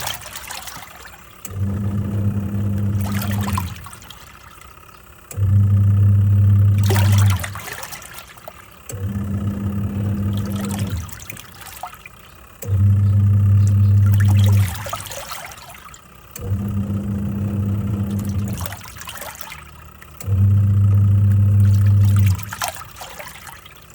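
Twin-tub washing machine washing a load: the wash motor hums in runs of about two seconds with short pauses between, six times, as the pulsator drives and reverses, with water sloshing and splashing in the tub throughout.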